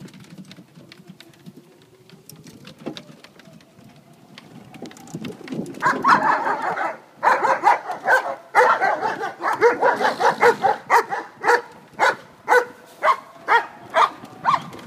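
A dog barking over and over, loud and fast at first, then in separate barks about two a second near the end. Before the barking starts, a golf cart's faint whine rises slowly in pitch.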